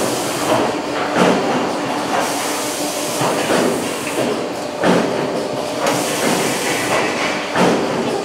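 Injection-molding machinery running on the factory floor: a steady hum and hiss with irregular clanks and knocks every second or so.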